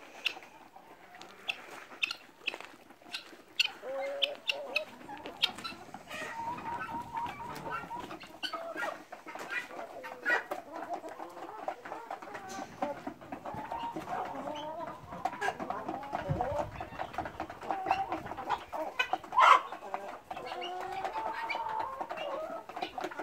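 A flock of chickens clucking continuously, with many overlapping calls, scattered sharp clicks and one louder call a few seconds before the end.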